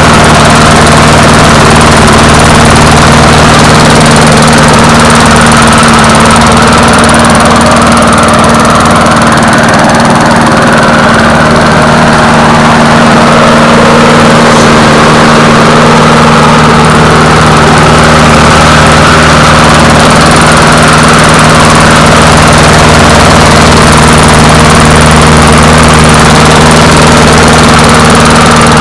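Briggs & Stratton single-cylinder engine on a 158cc Weed Eater push mower, running loud and steady at an even speed.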